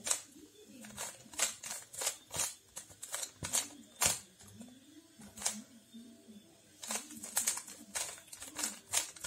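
Stickerless plastic puzzle cube turned quickly by hand: a fast, irregular run of sharp plastic clicks as the layers snap round, several a second, with short pauses between bursts of turns.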